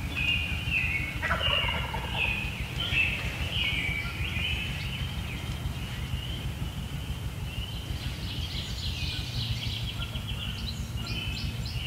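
A wild turkey gobbler gobbling, with a rattling call in the second half.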